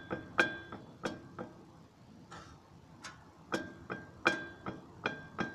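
Sharp metallic knocks, each with a short ringing tone, coming two to three a second with a pause of about a second and a half in the middle. This is the Mitsubishi Outlander XL's driveshaft knocking, caused by a worn front universal-joint cross.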